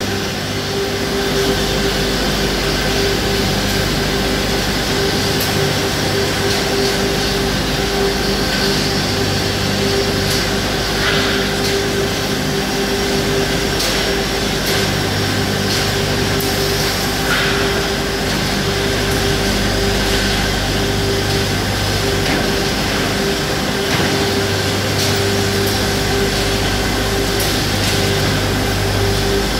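Pass-through monorail shot blasting machine and its plant running: a loud, steady machine drone with a constant mid-pitched tone and a low hum that swells and fades, with a couple of faint clanks.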